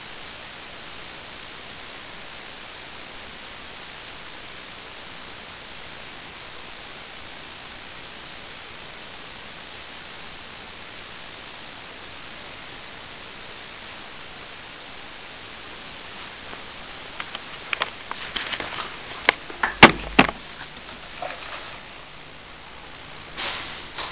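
Steady hiss of room tone, then, in the last third, a cluster of sharp knocks and clatters, loudest a few seconds before the end, as the handheld camera is handled and set down on a table.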